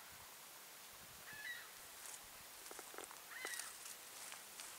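A bird calling twice, about two seconds apart, a short call each time. From about halfway, light footsteps crunching on the forest floor.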